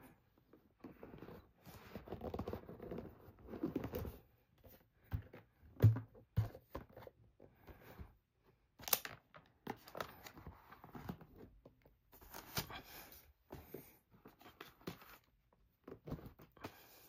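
Cardboard MacBook Air box being unpacked by hand: lid and inner tray sliding, scraping and rustling in short bursts, with one sharp thump about six seconds in.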